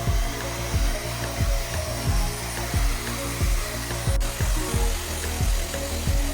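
Background music with a steady thumping beat and held notes.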